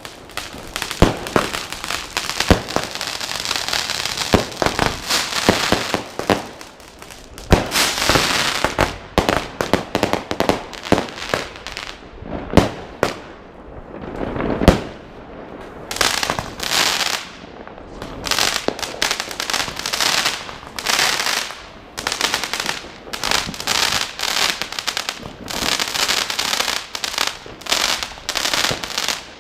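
New Year's Eve fireworks and firecrackers going off all around: a constant run of bangs and cracks with crackle and hiss between them, several loud booms in the middle and a fast rattle of cracks in the second half.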